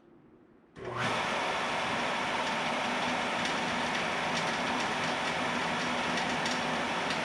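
Wood-Mizer LT15 electric sawmill switched on about a second in, its motor coming up to speed at once and then running steadily and loudly.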